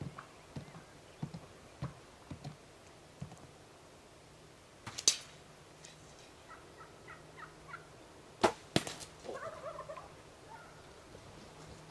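Gould's wild turkeys close by, giving short calls, mostly just after eight and a half seconds. A few soft low thuds come in the first three seconds, then a loud sharp crack about five seconds in and two more close together near eight and a half seconds.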